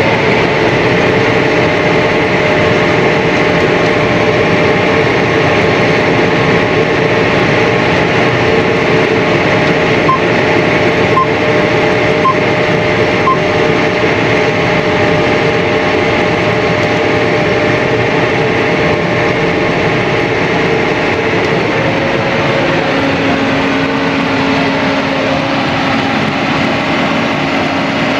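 Steady drone of a John Deere 4830 self-propelled sprayer heard from inside its cab as it drives along the corn rows. Around the middle come four short electronic beeps about a second apart, and a lower steady hum joins near the end.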